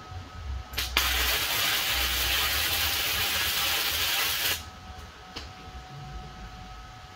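Electric welding arc on steel plate. It strikes briefly just under a second in, then burns with a steady loud hiss for about three and a half seconds and cuts off abruptly.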